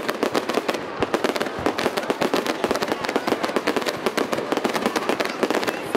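Fireworks display: a dense, continuous crackling of many small pops and bangs, many per second.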